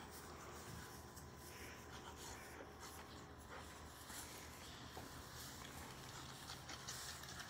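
Faint rustling and soft snuffling from a litter of Labrador puppies nursing together on grass, with a few small ticks; close to quiet.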